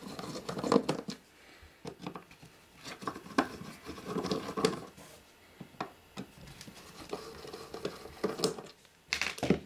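A screwdriver undoing the cover screws of an SEL EM-25 military radio's metal control box: irregular scratching and small clicks as the blade works in the screw slots.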